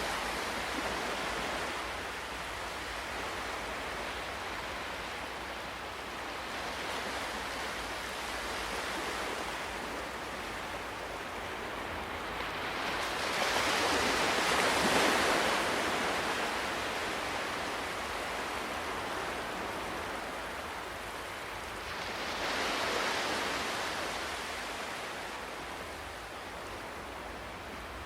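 Ocean surf washing ashore: a continuous rush of water that swells and falls back with each wave. The loudest wave breaks about halfway through, and another swells a little over three-quarters of the way in.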